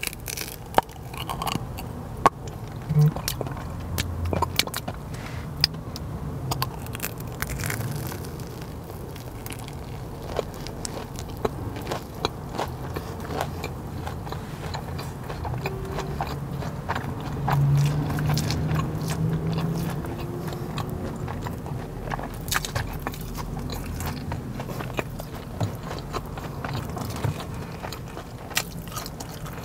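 A person biting into and chewing a Korean corn dog close to a clip-on microphone: many small crunches of the crispy fried batter over steady chewing of the mozzarella and beef hot dog filling.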